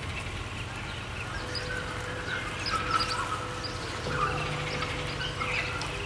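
Birds chirping in short, scattered calls over a steady low background hum.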